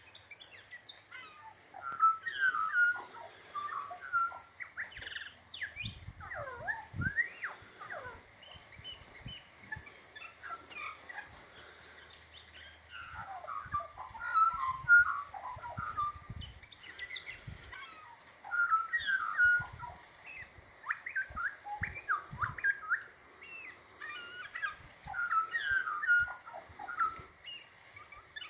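Australian magpie singing in repeated bouts of quick, varied warbling phrases with sliding notes, separated by short pauses.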